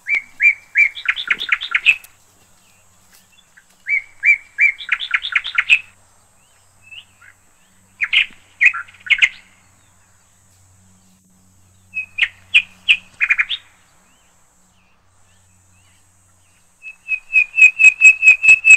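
A songbird singing in short repeated phrases, one about every four seconds, each starting with a few separate whistled notes and running into a fast rattling trill.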